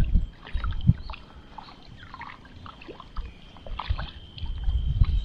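Water splashing and sloshing as a hooked wild tilapia thrashes at the surface on the line of a long fishing pole, with irregular low thuds mixed in. A faint steady high tone runs underneath.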